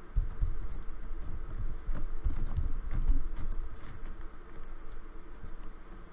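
Slime being handled and squished by hand: a quick irregular run of small clicks and pops with soft low thumps, busiest around the middle.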